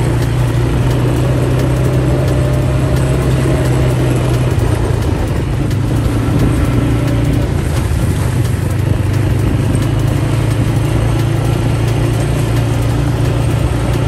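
ATV engines running at a steady, even speed while riding along a dirt track, with no change in pitch.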